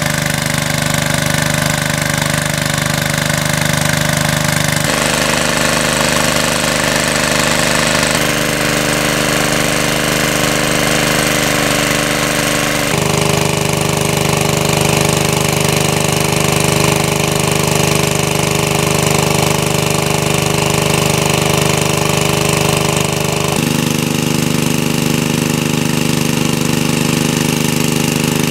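Small gasoline water-pump engine running steadily at a constant speed, with the rush of its water jet spraying from the outlet. Its engine note changes abruptly a few times.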